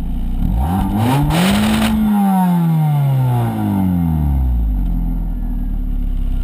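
Hyundai Elantra exhaust, with its second catalytic converter replaced by a test pipe and the stock muffler left on, idling and then revved once: the pitch climbs over about a second and sinks slowly back to idle over the next three.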